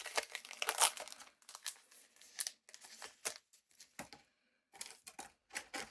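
Foil wrapper of a One Piece Card Game booster pack crinkling and tearing as the pack is opened, dense for the first second or so, then a few scattered rustles and clicks of the wrapper and cards being handled.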